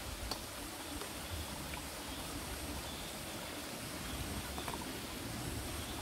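Steady rush of a mountain stream, with a couple of faint clicks of utensils against a steel bowl.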